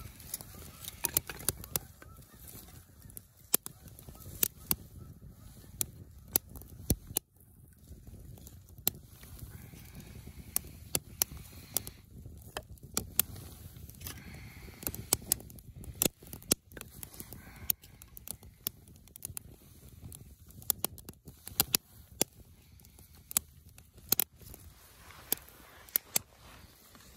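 Small fire of split kindling and feather sticks crackling, with irregular sharp pops several times a second over a low rustle of flame. Faint distant calls sound now and then in the background.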